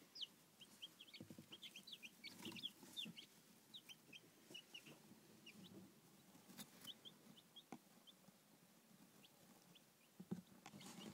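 Newborn chicks peeping: many short, high, downward-sliding cheeps, thick in the first few seconds and thinning out later, with a few faint knocks.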